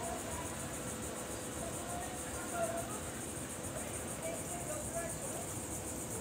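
A steady, high-pitched insect chorus with a fast, even pulsing, with faint voices of people far off beneath it.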